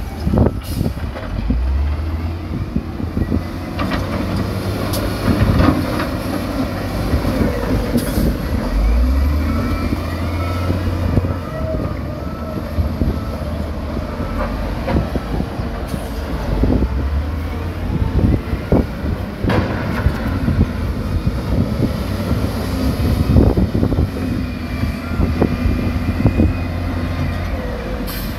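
Diesel engines of heavy earthmoving machinery running, with frequent metallic clanks and rattles.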